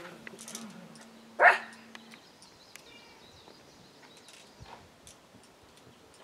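A dog barks once, a single short bark about a second and a half in; the rest is a quiet outdoor background with a few faint small sounds.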